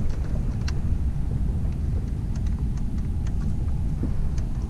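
Bow-mounted electric trolling motor running with a steady low rumble and a few faint clicks. The owner suspects its battery is dead from not being charged.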